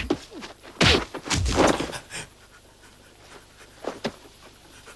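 Sounds of a scuffle: a sudden thump at the start, then a burst of heavy breathing and scuffling over the next second or so, dying down to a few faint knocks.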